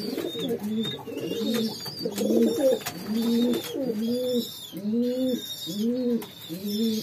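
Domestic pigeons cooing over and over in the loft, a steady run of low coos at about one and a half a second, with faint short high peeps between them.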